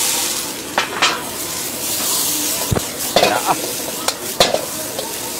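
Bean sprouts sizzling in a hot wok while a metal ladle stirs them, with several sharp clinks and scrapes of the ladle against the wok. The sizzle is loudest right at the start.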